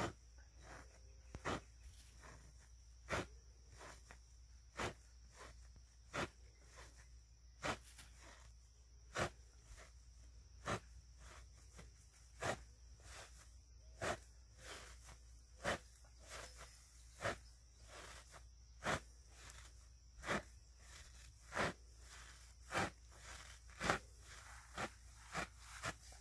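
Antique hay knife being driven down through a round hay bale, cutting hay and baling twine: a sharp crunch about every one and a half seconds, coming faster near the end.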